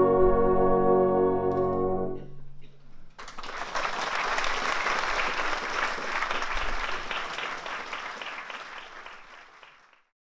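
A brass band holds its final chord, which stops about two seconds in. About a second later the audience breaks into applause, which fades away near the end.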